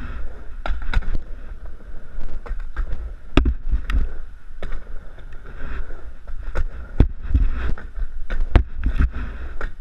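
Skateboard riding a concrete mini ramp: a steady low rumble of the wheels rolling, broken by about a dozen sharp clacks as the board and trucks strike the ramp and its coping.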